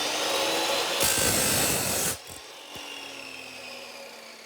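14-inch chop saw running, its abrasive wheel cutting through a steel bolt with a harsher, louder grinding for about a second, cutting the threads off. Then the motor is switched off and the wheel winds down with a falling whine.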